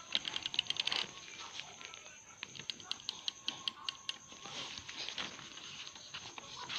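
Correction tape dispenser drawn across paper, its reel ticking rapidly as the tape is laid down. There are two runs of fast clicks, one in the first second and another starting about two and a half seconds in.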